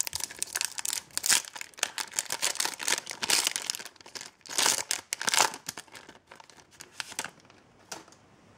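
Foil Yu-Gi-Oh! booster pack being torn open and crinkled in the hands, with dense crackling for about four seconds. A few louder rustles follow about halfway through, and the crackling thins out over the last few seconds.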